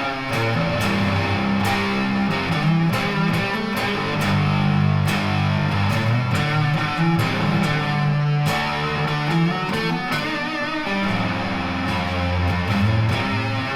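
Electric guitar on its neck pickup, played through a Hill Giant One Knob Fuzz pedal and an MXR Carbon Copy analog delay into a Vox AC15C1 and a Fender Princeton Reverb. It plays fuzzed, sustained chords and notes, picked and strummed, with the notes changing every second or so.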